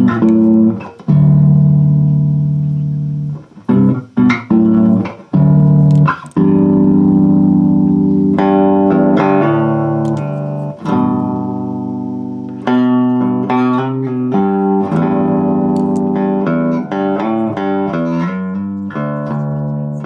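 Music played on a plucked cigar box bass guitar: separate notes with short breaks at first, then continuous playing with quicker note changes from about eight seconds in.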